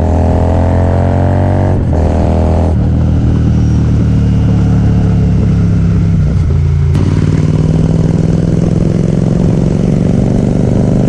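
Motorcycle engine running steadily, its sound changing abruptly about two, three and seven seconds in.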